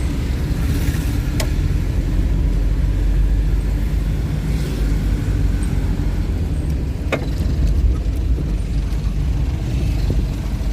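Road vehicle driving: a steady low rumble of engine and road noise, with two sharp clicks, one early and one about two-thirds of the way through.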